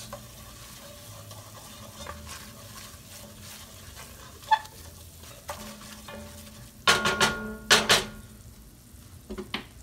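A wooden spoon stirring flour into hot oil in an enameled Dutch oven, the roux for a gravy frying with a soft sizzle. A few sharp knocks come about seven seconds in.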